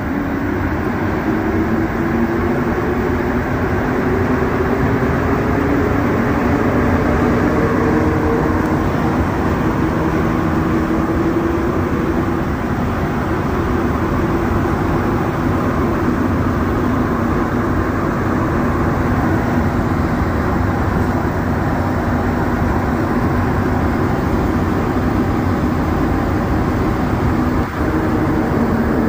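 Montreal Metro AZUR rubber-tyred train heard from inside the car as it pulls out of a station and runs through the tunnel. Motor tones rise in pitch over the first several seconds, then settle into a loud, steady running noise.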